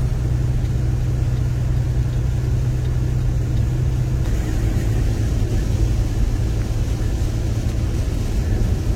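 Steady engine and road rumble heard from inside a moving vehicle's cabin at highway speed. About four seconds in, the low hum shifts down a little.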